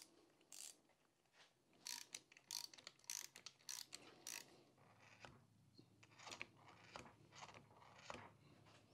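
Faint, scattered metal clicks and clunks from a rebuilt Porsche G50 pedal cluster as it is handled and its pedals are worked by hand. They cluster around two to four seconds in and again late on.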